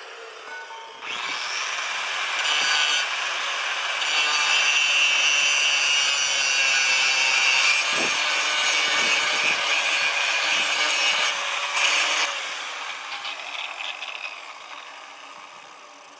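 Handheld angle grinder grinding the end of a steel bar: a loud, steady grinding that starts about a second in and runs for some eleven seconds, then fades away as the disc winds down.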